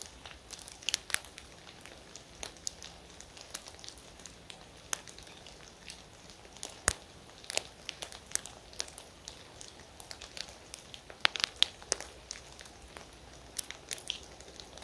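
Quiet outdoor background with irregular sharp ticks and crackles, a handful louder than the rest, clustering near the middle and toward the end.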